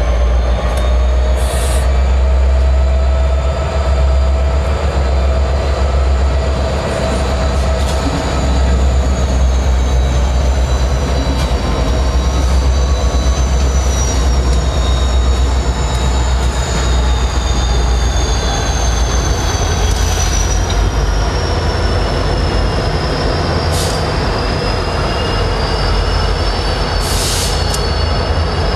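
Train wheels squealing on the rails in several drifting high tones over a steady low diesel rumble, with a few sharp metallic clanks.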